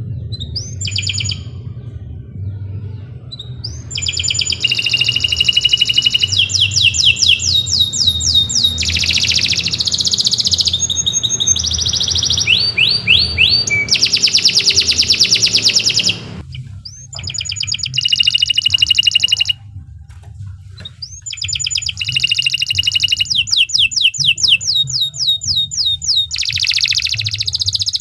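Domestic canary singing long phrases of fast trills and rapidly repeated high notes, with two short breaks past the middle, over a faint steady low hum.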